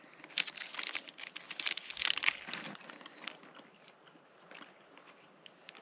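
Plastic snack wrapper crinkling as it is handled, a dense run of crackles for the first few seconds, then sparser and fainter.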